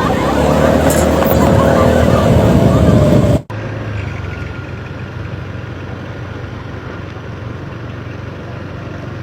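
Motor vehicle noise: a loud passing vehicle with a steady droning tone for about three seconds, then an abrupt cut to a quieter, steady engine rumble.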